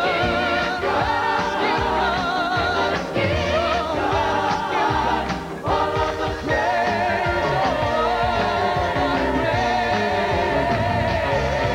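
Gospel music: voices singing with wide vibrato over accompaniment, settling into a long held chord about halfway through.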